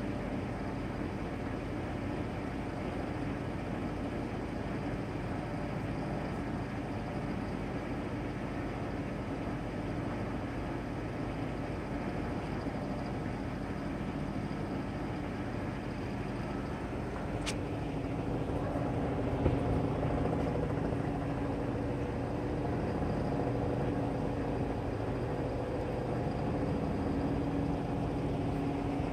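Domestic cat purring as it kneads: a steady low rumble that grows a little louder in the second half. A single sharp tap a little past the middle.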